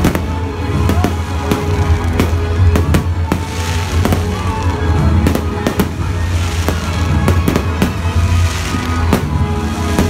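Aerial fireworks bursting in quick succession, with many sharp bangs and crackles, over music playing with a heavy bass.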